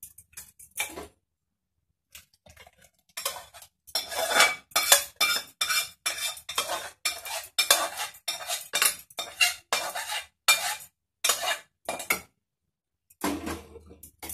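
Metal spoon clinking and scraping against an aluminium pressure cooker as boiled dal is scooped out of it: a quick, uneven run of clinks and scrapes from about three seconds in until about twelve seconds, with a few more near the end.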